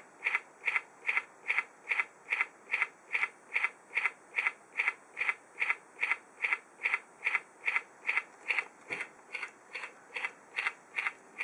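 Rubik's Touch Cube's electronic move sound: a short blip repeated about two and a half times a second as the cube automatically scrambles itself.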